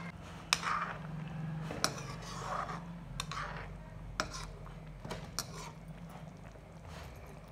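A metal spoon or ladle clinking against a kadhai as a simmering prawn and potato curry is stirred: about half a dozen sharp, scattered clinks over a low steady hum.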